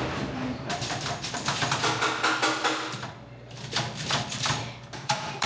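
Rapid, irregular clattering knocks, with background music playing underneath.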